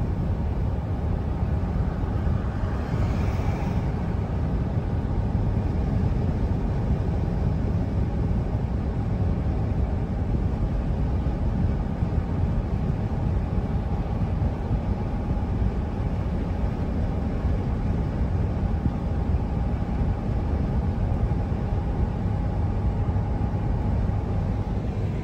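A van driving along a highway: steady road and engine noise.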